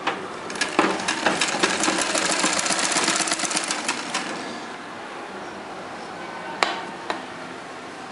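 Sewing machine stitching a seam in fabric, a fast steady run of needle strokes that stops about four seconds in. A sharp click comes near the end.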